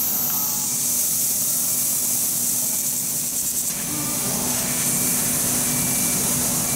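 Laser cutting machine cutting a metal plate: a steady hiss of the assist gas jet at the cutting head, over a steady machine hum.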